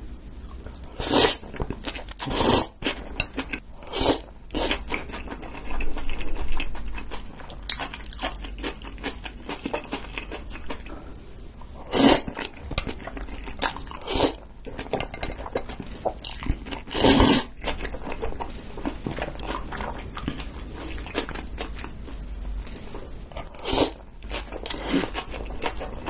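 Close-miked eating of spicy noodles: several loud slurps of noodles spaced a few seconds apart, with wet chewing and small mouth clicks in between.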